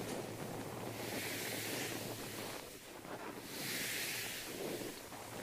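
Bristles of a plastic hairbrush swept over a handheld recorder's microphones, giving two long rushing swells of noise that rise and fade.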